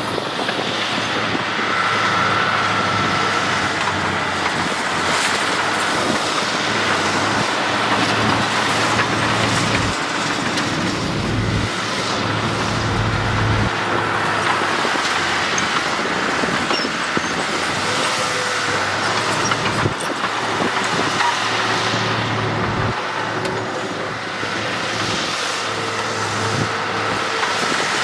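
Diesel engines of heavy earthmoving machinery, a bulldozer and dump trucks, running and working under changing load, the low engine hum growing and fading several times.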